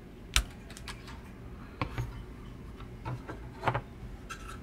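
Clicks and light knocks from a Tandy 102's main circuit board and its plastic parts being handled and turned over on a bench mat. About six of them, irregular, the sharpest about half a second in.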